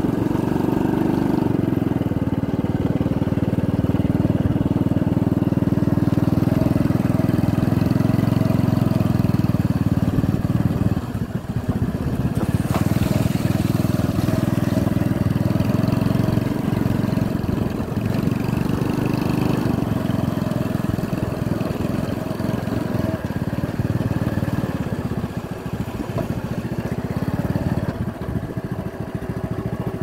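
Small motorcycle engine running steadily as the bike rides along, with a brief dip in loudness about eleven seconds in.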